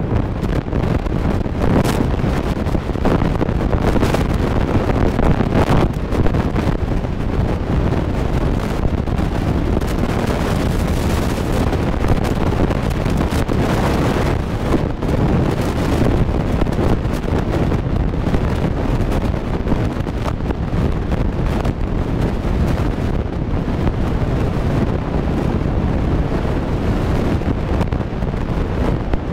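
Steady wind noise on the microphone of a camera filming from a moving car, over the car's engine and road noise.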